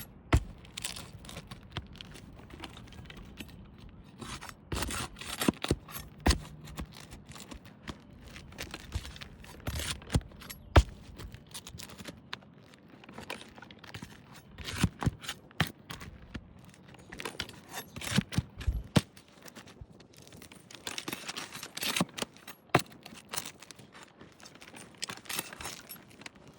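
Roofing nails being pried out and old asphalt shingles worked loose by hand. There is irregular scraping and tearing, with many sharp metallic clicks and knocks.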